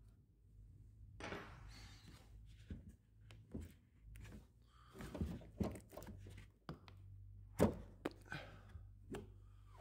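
Hands handling a Festool plastic tool case and its foam insert: scattered clicks, knocks and short rustles, with the sharpest knock about three-quarters of the way through.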